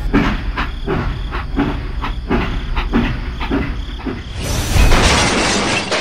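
Toy train running on its track with a rhythmic clacking of about two or three knocks a second. About four and a half seconds in, a crash with a boom gives way to a long rushing hiss.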